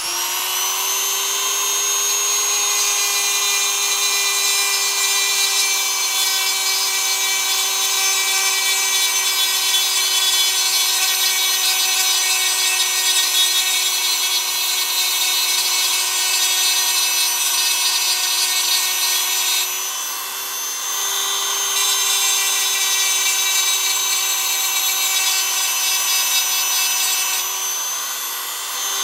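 Small high-speed rotary power tool grinding away the plastic on a MacBook Pro A1708's antenna piece, which rubs against the case and makes the lid crack when opened. The motor settles to full speed at the start and then runs as a steady high whine, its tone changing briefly twice in the second half.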